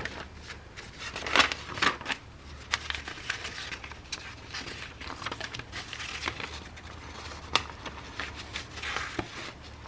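Paper instruction manual being handled and its pages turned: irregular crinkling rustles with a few sharper snaps.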